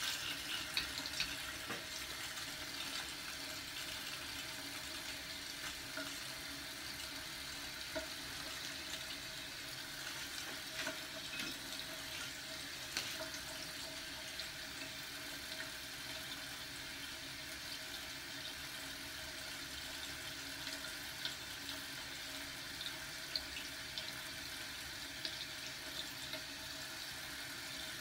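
A steady rushing noise with a faint low hum underneath and a few light ticks.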